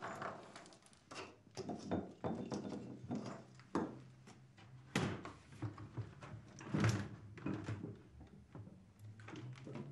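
Irregular knocks and thuds with shuffling footsteps on a wooden floor, the sharpest knocks about five and seven seconds in.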